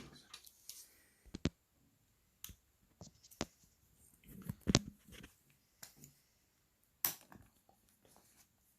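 Scattered small clicks and scrapes of a tool working on a Xiaomi Redmi 7 phone's internals while its RF antenna cable is unclipped, with one sharper click near the middle.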